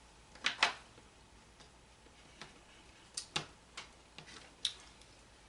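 Scattered sharp clicks and smacks of eating seafood by hand: a pair about half a second in, then a quick cluster of about five in the middle.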